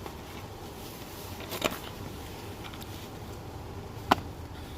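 Two sharp clicks of plastic trim, about two and a half seconds apart, the second louder, as the lower steering column cover pieces are handled and fitted, over a low steady hum.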